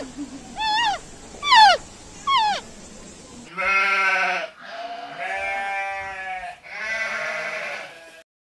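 Four short, high, arched cat meows in the first three seconds, the loudest sounds here. From about three and a half seconds in come three long, wavering bleats.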